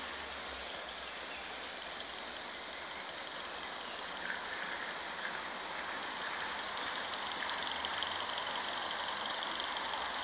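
Gauge 1 live-steam model locomotive running with its coaches on the garden track: a steady rushing noise that grows louder in the second half as the train draws near.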